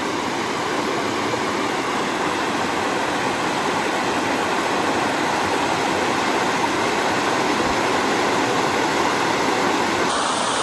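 Creek water pouring over a low stone dam spillway: a steady rushing noise.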